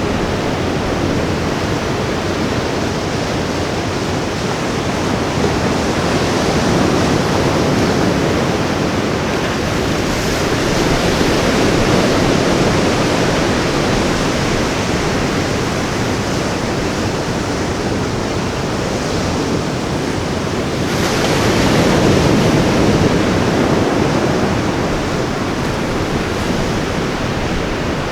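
Ocean waves breaking and washing on a beach, a steady surf roar that swells twice, with some wind on the microphone.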